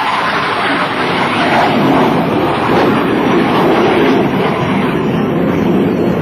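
Jet engine noise from a Boeing F/A-18 Hornet's twin General Electric F404 turbofans as the jet passes and climbs: a loud, steady rush of noise.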